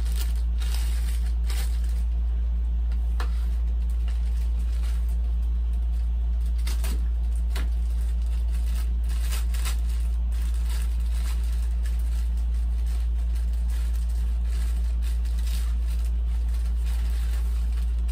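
Clear plastic bags crinkling and rustling in irregular bursts as foam model-airplane parts are handled and unwrapped, over a steady low hum.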